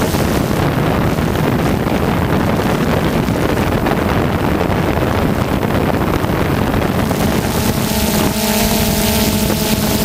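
DJI Phantom 2 quadcopter's motors and propellers humming steadily, with wind noise on the microphone. It is picked up by the GoPro riding on the drone. From about eight seconds in, the hum turns steadier, with several clear held tones.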